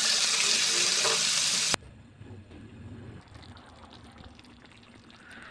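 Chicken livers sizzling loudly in a hot wok, an even hiss that cuts off abruptly after under two seconds. Then a much quieter simmer of the livers and boiled eggs in brown sauce.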